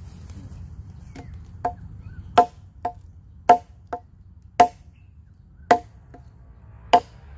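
A 12-inch Village Chandong parang chopping into a wooden log: a series of sharp chops starting about a second in, the hard ones coming about once a second, with lighter knocks between them.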